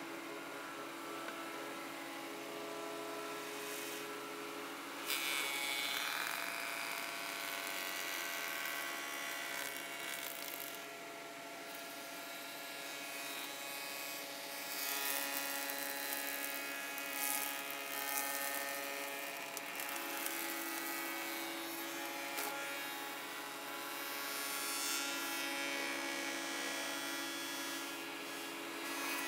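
MARTIN spindle moulder running with a steady whine, its milling head cutting a curved chair back leg that is guided by a template against the collar. The cutting noise comes in about five seconds in and rises and falls as the wood is fed past the cutter.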